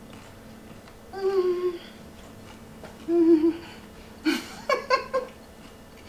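A woman humming "mmm" with her mouth closed while tasting bread: a drawn-out hum about a second in, another about three seconds in, then a quick run of short hums near the end.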